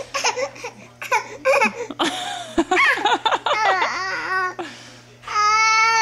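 Baby laughing and babbling in short, pitch-gliding bursts, then a long, steady high-pitched squeal a little after five seconds in.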